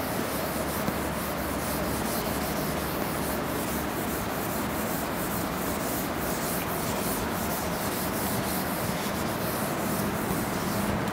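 Chalkboard duster wiping chalk off a blackboard: steady scrubbing in quick repeated strokes.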